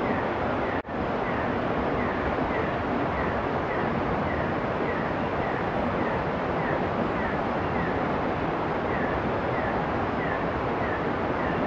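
Steady rushing background noise of a forest at night, with a faint short falling note repeating about every half second. The noise drops out for an instant about a second in.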